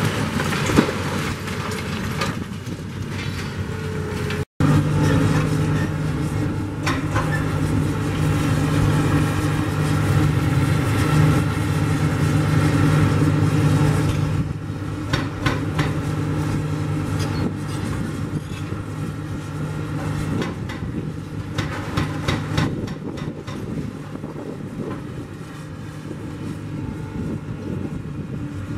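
Diesel engines of hydraulic crawler excavators running steadily while they tear down a concrete building frame, with scattered cracks, knocks and clatter of breaking concrete and falling debris. The engine drone is strongest in the first half and eases after the middle.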